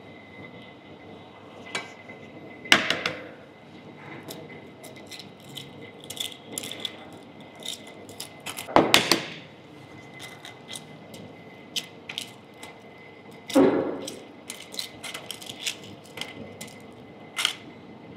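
Hard-boiled eggshells being cracked and peeled off by hand: a run of small crackles and clicks, with three louder cracks spread through.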